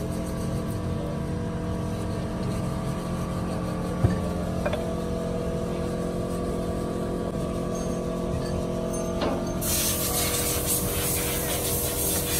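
A steady mechanical drone from a running machine, a single metal knock about four seconds in, then a loud hiss of spray for about three seconds near the end.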